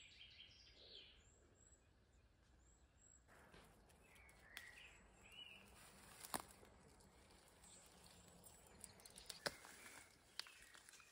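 Quiet garden ambience with faint, scattered birdsong and a few sharp clicks and light rustles from hands picking pea pods off the vines.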